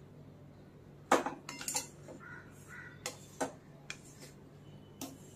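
Spatula stirring grated coconut being dry-roasted in a kadhai: irregular scrapes and sharp clanks against the pan, the loudest about a second in.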